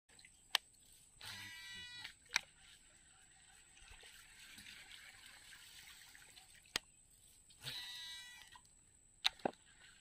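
Shimano Scorpion DC 151XG baitcasting reel cast twice. Each cast brings about a second of the DC electronic brake's whine as the spool spins, wavering up and down in pitch. Single sharp clicks from the reel come before and after each cast.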